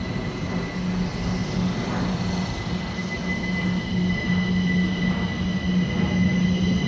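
London Overground Class 378 Electrostar electric train moving slowly along the platform, its running rumble carrying a steady high whine from the traction equipment and a low pulsing hum.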